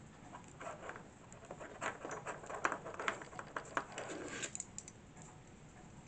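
Small, irregular clicks, taps and scrapes of a stainless steel wire key ring loop and small hand tools being handled while the loop is threaded through them, dying down about four and a half seconds in.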